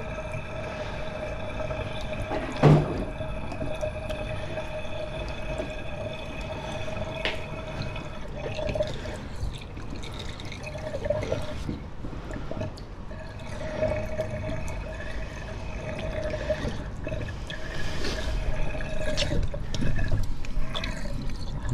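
A full stainless steel kitchen sink draining down its plug hole, the water swirling and gurgling steadily; the drain now empties freely after the waste pipe was cleared. A sharp knock comes about three seconds in.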